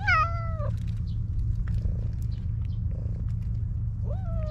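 White stray cat giving two affectionate meows while being petted. The first is a loud, drawn-out 'nyaun' that falls in pitch; the second, about four seconds in, rises and then holds. A low steady rumble runs underneath both.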